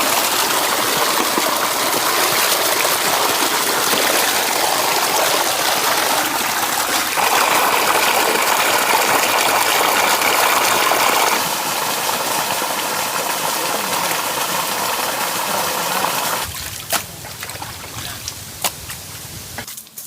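Water gushing in a steady rush. It stops about 16 seconds in, leaving a few light knocks.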